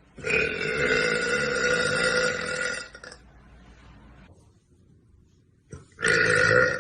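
A young woman burping: one long burp lasting nearly three seconds, then a second, shorter burp near the end.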